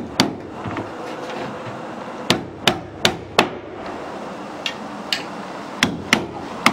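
Hammer driving nails through a steel truss plate into 2x4 lumber: about ten sharp blows in short runs, including a quick run of four, with a couple of lighter taps in between.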